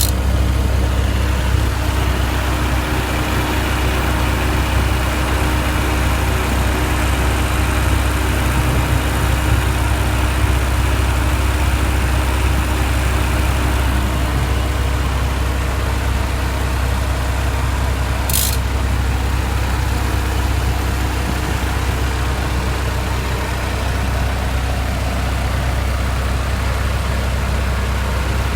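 A 1991 Honda Civic 1.5L engine idling steadily with its Matsushita air-conditioning compressor running, the kind that makes a loud rapid ticking whenever it is switched on. One brief sharp click about eighteen seconds in.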